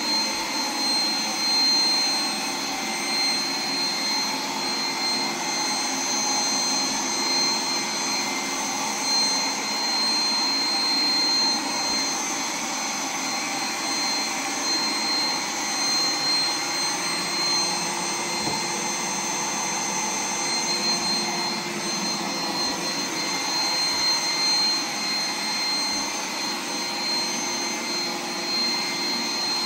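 Roomba 980 robot vacuum running: a steady high-pitched motor whine over the hum of its suction and brushes.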